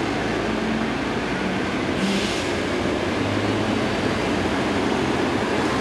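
Steady rumble of road and engine noise heard inside a moving car, with a brief rush of higher noise about two seconds in.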